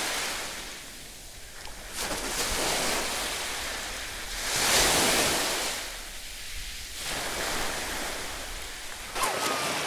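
Sea waves washing onto a beach, the surf swelling and fading every two to three seconds, loudest about halfway through. Near the end come sharp splashes of someone running through shallow water.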